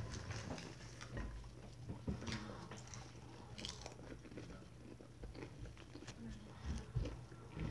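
Popped popcorn crunching in a run of small, irregular crackles, close to the microphone.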